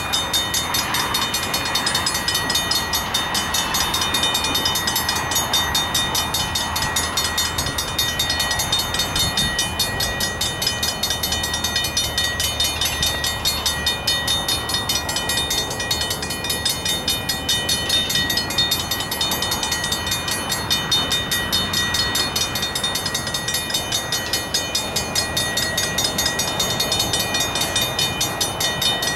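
Safetran mechanical railroad-crossing bells ringing continuously with rapid, evenly spaced strokes, sounding the warning for an approaching train.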